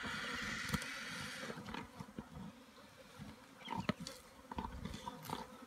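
Spotted hyenas and white-backed vultures squabbling over a giraffe carcass. A harsh hiss-screech from the vultures lasts about the first second and a half, followed by scattered cracks and tearing of feeding and a few short squawks.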